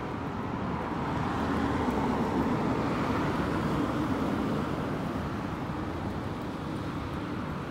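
Street traffic: a small car drives past, its engine and tyre noise swelling over the first few seconds and then fading as it moves away.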